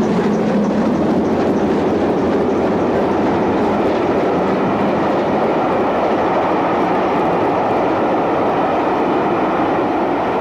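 Steam locomotive Clun Castle, a GWR Castle-class 4-6-0, hauling a train: a steady rush of running noise, with quick regular beats through the first few seconds.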